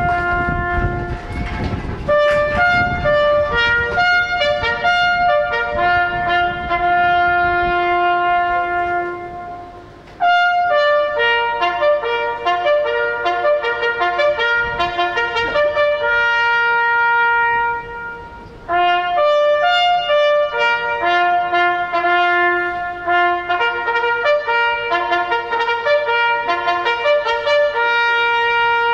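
Trumpet music playing in long held notes, in phrases broken by two short pauses, about ten and eighteen seconds in.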